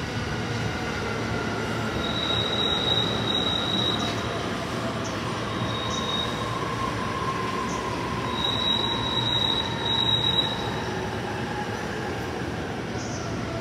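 Electric train moving slowly through the station, its wheels squealing high on the rails in stretches of a second or two, loudest near the end, over the running noise of the train.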